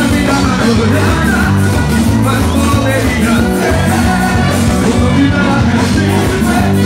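Live band music played loud through a PA system, with singing over a driving bass line and steady beat.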